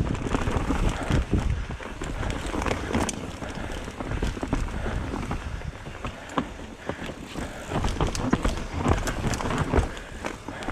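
Mountain bike descending a dirt trail: tyres rumbling over the ground with a continuous low rumble, the bike rattling with many sharp clicks and knocks over the rough surface.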